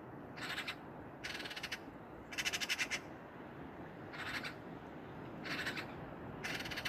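Eurasian magpie chattering: six harsh rattling calls, about a second apart, the loudest about halfway through.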